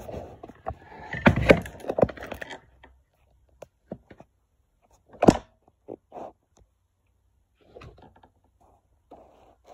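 Knocks and clatter of things being handled against a hard surface: a busy run of knocks over the first two seconds or so, one sharp knock about five seconds in, then a few fainter taps.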